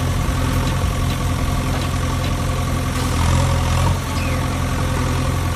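Engine idling steadily, a tractor engine sound effect laid over the footage of a toy loader, swelling slightly about three and a half seconds in.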